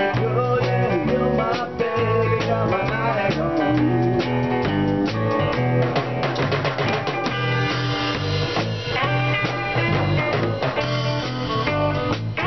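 Electric blues band playing live: an electric guitar plays lead lines with bending, sliding notes over a steady drum-kit beat.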